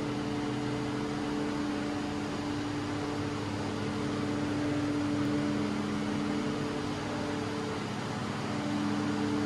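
CAT 299D2 compact track loader's diesel engine idling steadily, a constant hum with a low drone under a hiss.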